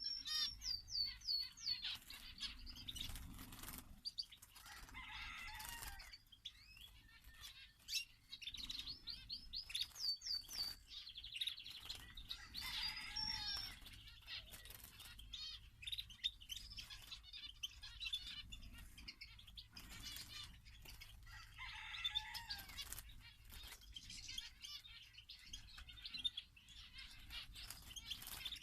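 Small songbirds in a flight aviary chirping and twittering, with runs of fast repeated high notes near the start and again about ten seconds in, and wings fluttering as the birds fly about.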